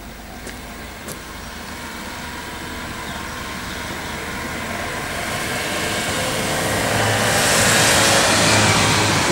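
A car approaching along the road, its tyre and engine noise growing steadily louder over several seconds and loudest near the end as it comes close.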